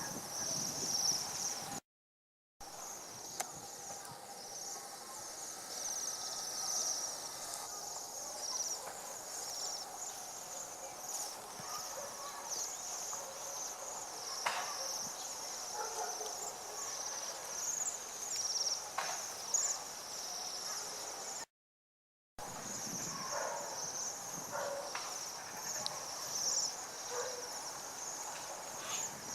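A flock of small wintering birds chirping and twittering without pause, a dense high-pitched chatter, cut off twice by brief gaps of silence.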